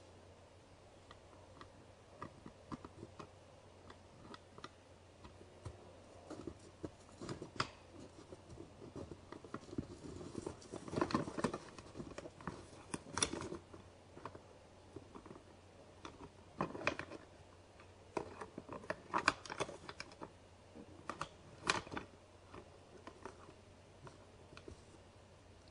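Two white-tailed bucks sparring, their antlers clicking and clattering together in irregular rattles, a few faint clicks at first and then several louder bursts through the second half.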